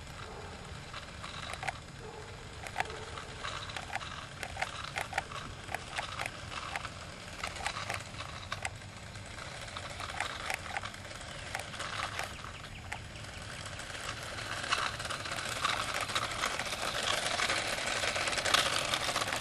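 Radio-controlled toy car running, with scattered clicks and taps. Its whirring noise grows steadily louder over the last few seconds as it comes closer.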